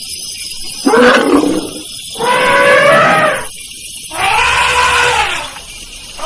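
Elephant trumpeting calls, three in a row, each arching up and then down in pitch.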